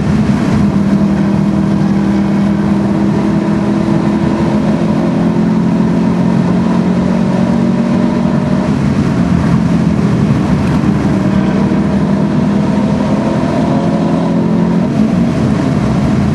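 US-spec Subaru Impreza STI's turbocharged 2.5-litre flat-four, with a Milltek exhaust, pulling hard under load, heard from inside the cabin. The engine note climbs slowly, falls back about halfway through, climbs again and drops near the end.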